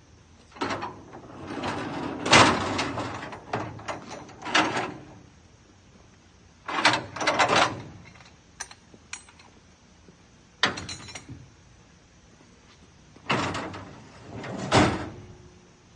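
Metal Loadall loading ramp being folded up and slid into a pickup truck bed: several bouts of metal clanking, rattling and scraping with short pauses between them, the last and loudest near the end.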